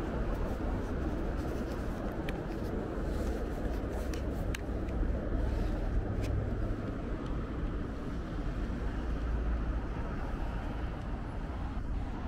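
Steady road traffic noise with a deep rumble, and a few faint sharp clicks.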